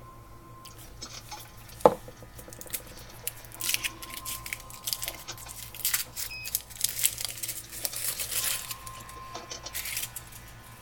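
Crinkling and rustling of a plastic candy wrapper being handled and torn open, with one sharp snap about two seconds in.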